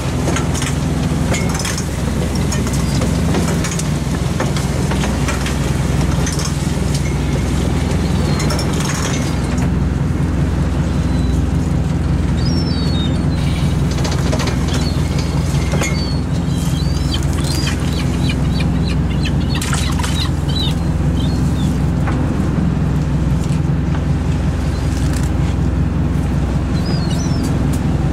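Boat engine and hydraulic net hauler running steadily while a monofilament gill net is drawn in over the hauler, with the net, floats and line clicking and rattling. Brief high squeaks come through now and then.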